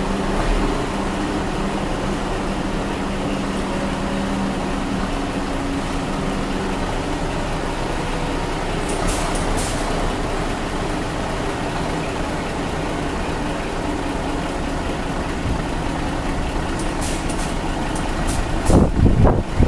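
Scania R420 truck's six-cylinder diesel engine running steadily at low revs while the tractor unit reverses under its trailer, with short air hisses about 9 seconds in and again near the end.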